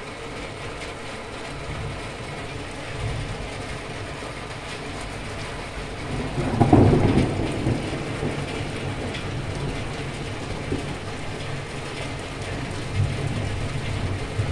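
Steady heavy rain, with a rumble of thunder about six seconds in that swells and then dies away over a couple of seconds.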